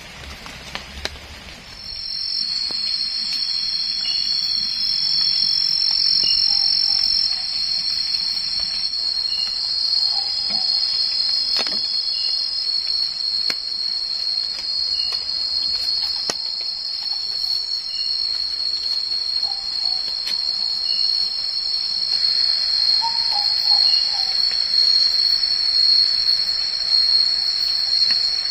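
Rain patter gives way, about two seconds in, to a steady, high-pitched chorus of night insects, crickets, that runs on unbroken. A few light knocks sound over it.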